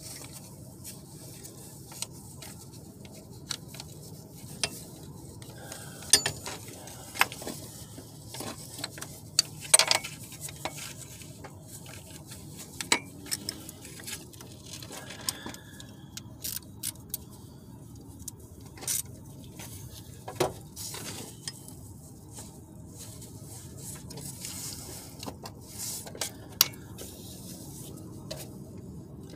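Metal hand tools and parts clinking and clicking during work on a car engine: irregular sharp clinks and knocks, some a second apart and some several seconds apart, over a low steady hum.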